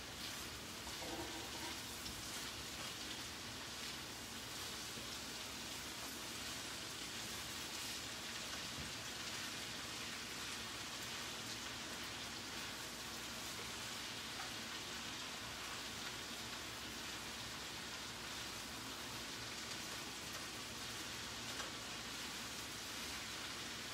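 Kale and chopped vegetables sizzling steadily in a frying pan as they cook down, with faint clicks of a utensil stirring now and then.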